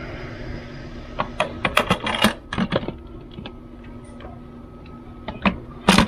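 Instant Pot pressure cooker lid being twisted and unlatched after a quick release, with a run of light metallic clicks and rattles about a second in. A few more clicks follow, then the sharpest clack near the end as the lid comes free.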